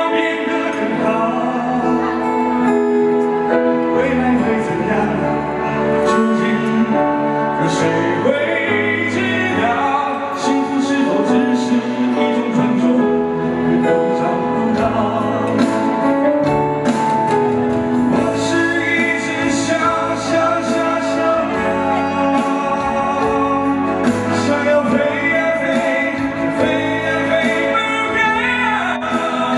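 A man singing into a handheld microphone over accompanying music, holding long notes and sliding between pitches, with a percussive beat underneath.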